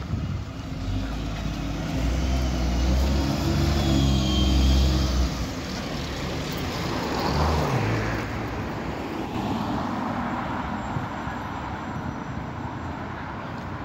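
Single-decker bus engine running as the bus drives past close by, loudest about four to five seconds in, with a high whine over it; then steady street traffic noise.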